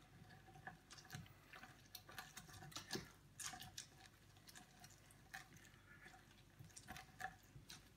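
Faint wet squelching with scattered small clicks as a lemon half is twisted and pressed by hand on a cone citrus juicer.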